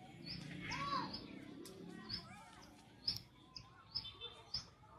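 Small birds chirping, short high notes repeating about twice a second, with a couple of rising-and-falling calls in the first half. Several sharp clicks come in the second half.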